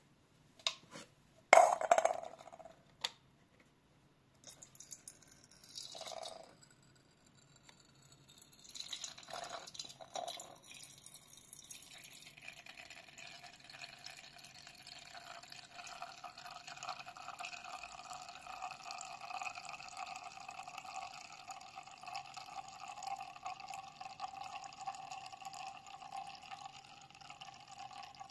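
Water running from a tap and filling a container. It settles into a steady pouring sound after about twelve seconds, and there are a few sharp knocks in the first few seconds.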